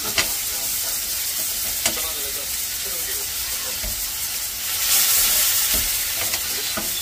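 Slices of raw pork belly sizzling on a hot ridged cast-iron grill pan, with metal tongs clicking sharply against the pan twice in the first two seconds. About five seconds in, the sizzle swells louder for about a second.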